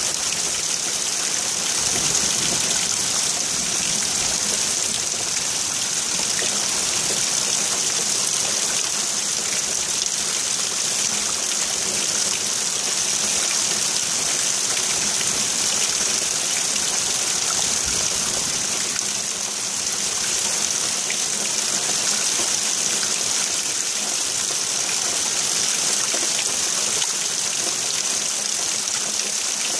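Rain falling steadily, an even, continuous hiss.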